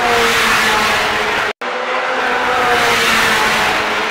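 Ferrari Challenge race car's V8 engine at high revs sweeping past at speed, its pitch sagging slightly as it goes by. The sound drops out for an instant about one and a half seconds in, then a car is heard running loud again.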